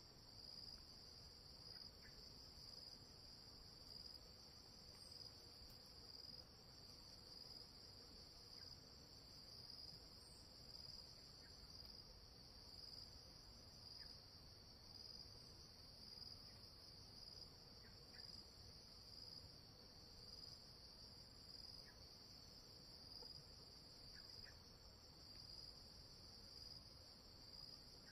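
Faint, steady chorus of insects such as crickets: a continuous high-pitched trill that swells slightly every second or so.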